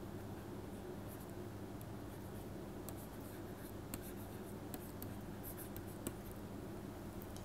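Faint taps and scratches of a stylus on a pen tablet during handwriting, a few small clicks here and there, over a low steady electrical hum.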